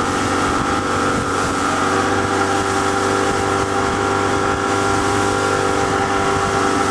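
Motorboat engine running steadily at speed while towing an inflatable tube, over a steady rush of water and wake.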